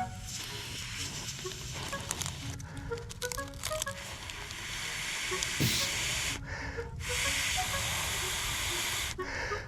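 A campfire hissing and sizzling, under soft background music.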